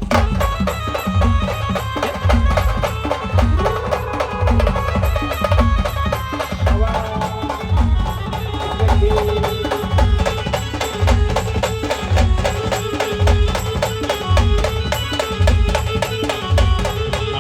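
Brass band playing a fast dance tune: sustained melody over a dense, driving drum beat.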